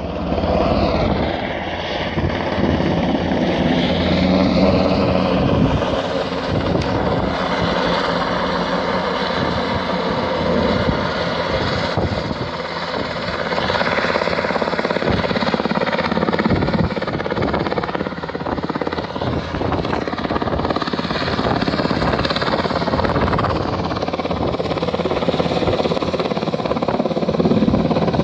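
Rescue helicopter flying in over the mountainside: steady, loud rotor and engine noise that swells and eases a little as it moves, with an engine whine that slides down in pitch about a second in.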